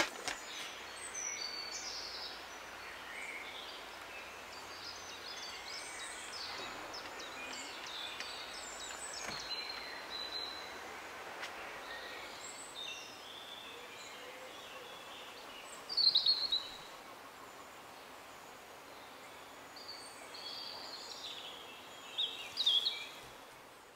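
Birds chirping and calling over a steady faint outdoor hiss, with one louder call about two-thirds of the way through and another near the end.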